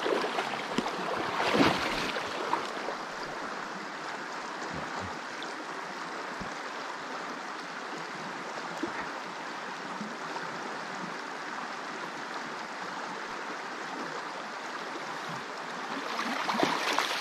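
Shallow river current flowing over a rocky bed: a steady rush of water. Brief louder splashes come about a second and a half in and again near the end.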